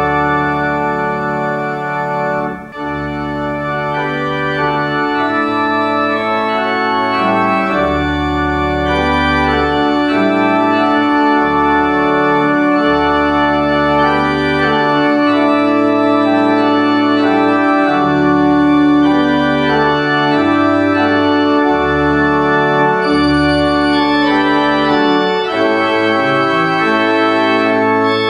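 Pipe organ playing slow sustained chords over a moving pedal bass line.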